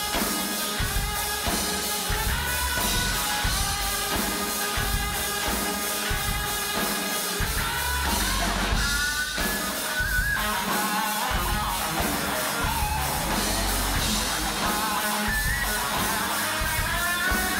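Live rock band playing: strummed acoustic guitar and electric bass over a steady drum beat, with a melody line that slides between notes.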